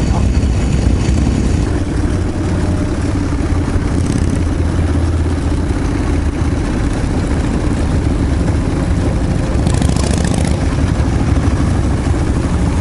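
Harley-Davidson V-twin motorcycle engines running steadily as a group of bikes rides along together, heard from one of the motorcycles in the pack. A brief hiss about ten seconds in.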